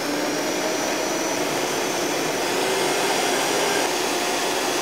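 Vitamix countertop blender running at speed, blending basil, pine nuts, garlic and olive oil into a smooth pesto: a loud, steady whir with a faint whine in it.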